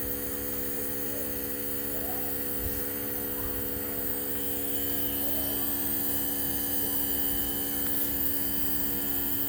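Steady electric hum made of several constant tones, growing slightly louder in the second half.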